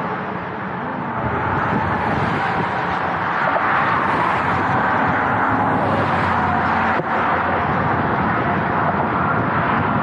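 Steady road noise of highway traffic passing on the bridge, with a brief sharp click about seven seconds in.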